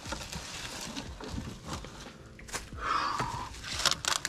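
Gloved hands rummaging through dry leaves, pine needles and rotted debris inside a fiberglass boat's hatch: rustling and crackling with scattered small knocks, and a louder rasping sound about three seconds in.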